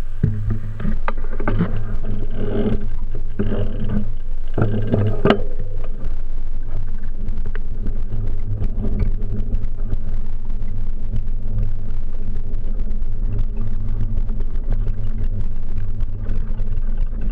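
Steady low rumble of a bicycle riding over a stone-mosaic pavement, picked up by a handlebar-mounted camera, with a few sharp knocks and rattles in the first five seconds.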